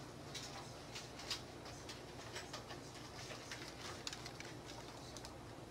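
Faint scattered clicks and light rustles, roughly one a second, over low steady background noise.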